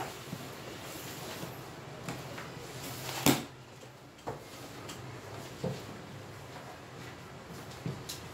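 A marker tapping and scratching on a whiteboard as words are written, with small knocks every second or two. One sharp, louder click comes about three seconds in.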